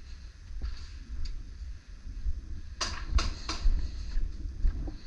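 Three sharp airsoft gun shots in quick succession about three seconds in, with a few fainter clicks before and after, over a constant low rumble.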